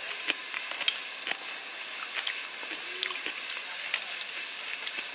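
Spoons and fingers clicking and scraping against ceramic bowls and plates during a meal, many small sharp taps over a steady high hiss.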